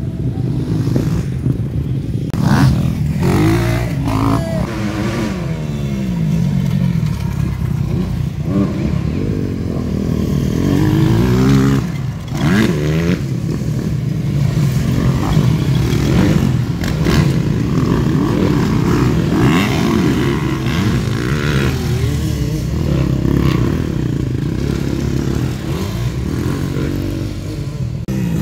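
Several motocross motorcycles racing together, their engines revving up and down over and over as the riders accelerate and shift. The engines overlap continuously.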